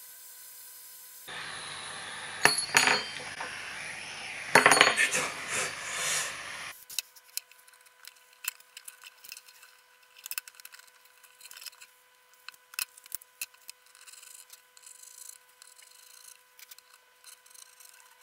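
Light, scattered clicks and taps of small hand tools against a phone and the tabletop, as the back glass is worked loose and lifted off. In the first seconds a louder hiss carries a few sharp clacks, then stops abruptly.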